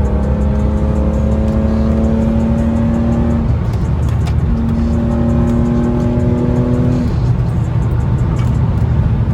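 BMW E46 M3's straight-six engine pulling under steady throttle, its note climbing slowly, over a heavy low road rumble. The note breaks off about three and a half seconds in, as at a gear change, then climbs again until about seven seconds in.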